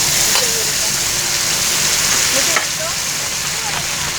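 Food sizzling steadily on a hot grill or pan, with faint voices in the background.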